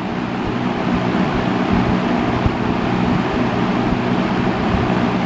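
1970s Hoover Multipurpose 20-inch box fan with a two-speed McMillan motor running on its low speed: a steady motor hum over the rush of air from the blades.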